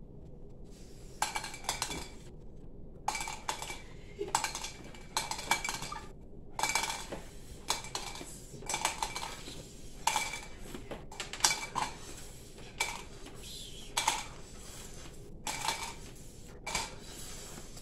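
M&M candies dropping from straws into clear drinking cups and onto the tabletop: irregular small clicks and clinks, a few a second.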